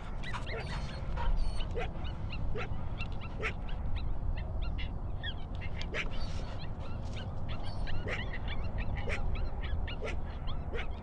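Coyotes barking and yipping in many short, sharp, irregular calls, some bending in pitch, over a steady low rumble.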